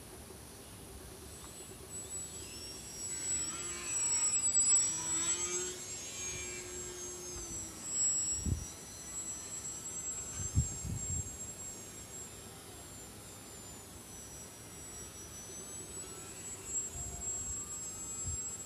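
A small electric RC aerobatic plane's motor and propeller whining in flight. The pitch glides down as the plane passes close about four to five seconds in, then settles into a steadier, fainter whine. A few low thumps come near the middle.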